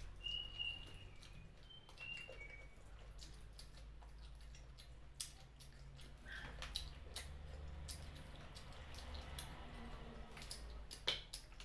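Close, wet eating sounds of someone chewing and sucking on curried chicken feet: irregular small clicks and smacks, with a few short high squeaks in the first couple of seconds.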